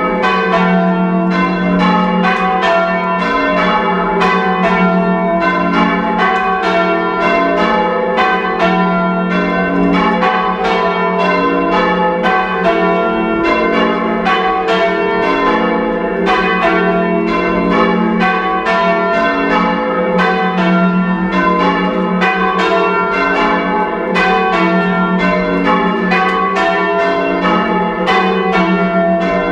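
Four bells of a heavy five-bell church ring being rung full circle, struck one after another in a steady, even run, very loud from inside the ringing chamber. Only four of the five bells are sounding because the treble's rope has snapped.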